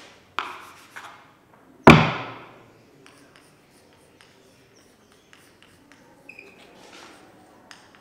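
A loud thud about two seconds in, after a smaller knock just before it. Then come faint, scattered ticks and scratches of chalk writing on a chalkboard.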